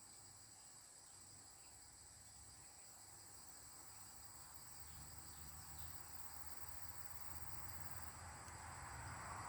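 Insects trilling steadily, two constant high-pitched tones. A low rumble and rushing noise slowly build toward the end.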